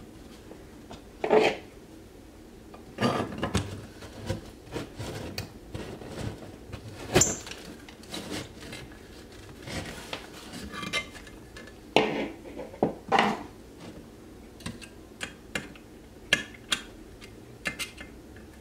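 A metal hand tool clinking and scraping against a metal electrical outlet box, making irregular metallic clicks and knocks, with a few louder clanks scattered through.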